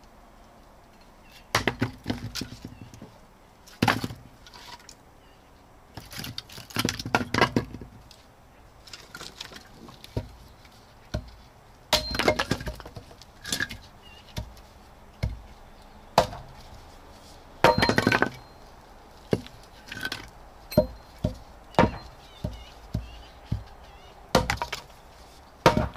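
Firewood being handled: irregular wooden knocks and clinks, roughly one a second, a few with a brief ring.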